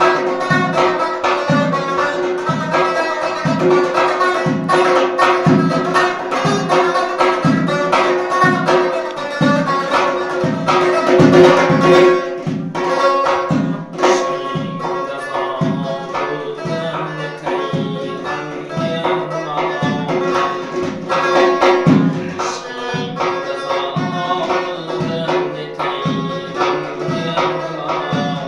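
Uzbek traditional music: a doira frame drum struck by hand in a steady rhythm, under the plucked melody of a long-necked lute.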